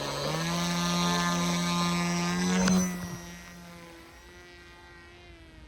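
Electric brushless motor and pusher propeller of a small fixed-wing FPV plane running at a steady high-pitched hum under launch throttle, with a sharp click about two and a half seconds in. The hum then fades quickly as the plane flies away.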